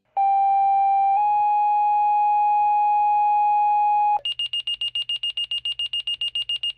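Fire department pager alert: a two-tone page, one steady tone that steps slightly higher after about a second and holds for about three seconds more, followed by rapid high-pitched beeping, about ten beeps a second, as the pager alerts the crew to a call.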